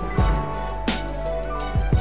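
Background music: sustained instrumental tones over a kick drum that hits about four times.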